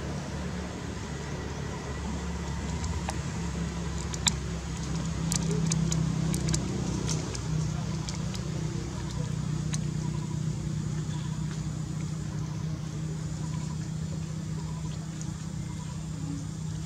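Steady low mechanical hum, like distant engine noise, with a few scattered sharp clicks; the loudest click comes about four seconds in.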